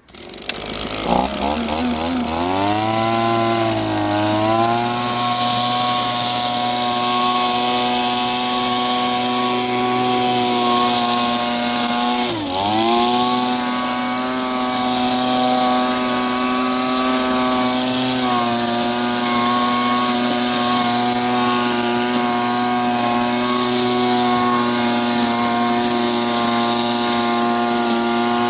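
Small petrol engine of a handheld leaf blower-vacuum starting up, its pitch rising over the first few seconds, then running steadily at high speed, with one brief drop in revs about twelve seconds in.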